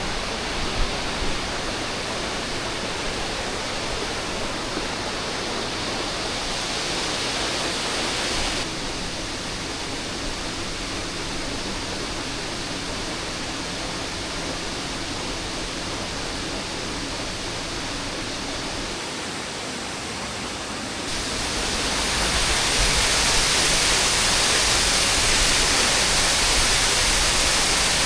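Waterfall rushing in a steady roar of falling water. The sound changes abruptly twice: it becomes duller about nine seconds in, then suddenly louder and brighter about 21 seconds in.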